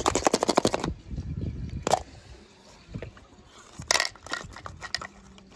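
Hard plastic toy eggs being handled and opened: a quick rattling run of clicks, a single snap about two seconds in, then a cluster of clicks and scrapes as the egg halves are pulled apart to free a small die-cast toy car.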